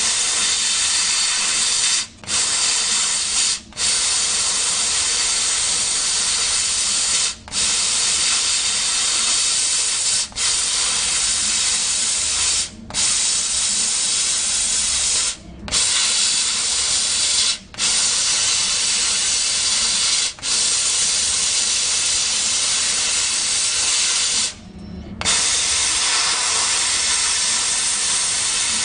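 Air-assist jet of a CO2 laser cutter hissing steadily at the cutting head while it cuts 4 mm wood. The hiss cuts out briefly about nine times, most clearly for under a second near the end, as cutting stops and restarts.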